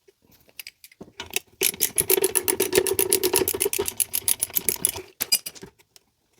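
Socket ratchet clicking rapidly as a bolt is turned out: a few scattered clicks, then a fast, even run of clicks lasting about three seconds.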